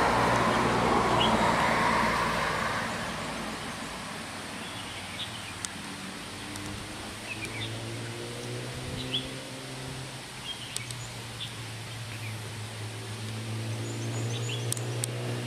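Passing road traffic fades away over the first three seconds, leaving a steady low hum and scattered short bird chirps.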